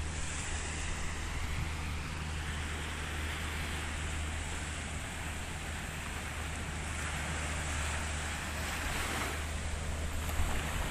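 Ocean waves washing with wind, in a steady rush that swells twice, over a steady low hum.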